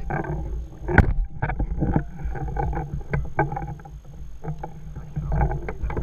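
Wind and water noise around kayaks at sea, a steady low rumble, with a sharp click about a second in and scattered lighter clicks and knocks of handling.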